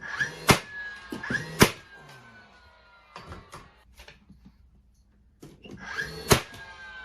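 Power brad nailer driving 2-inch brad nails through cedar ceiling planks: three sharp shots, two close together about half a second and a second and a half in and a third near the end, each followed by a high whine that falls away. Lighter knocks from handling the planks come in between.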